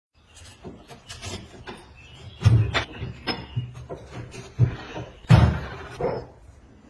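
Irregular knocks and clatters of hard objects being handled, with the loudest about two and a half and five and a half seconds in.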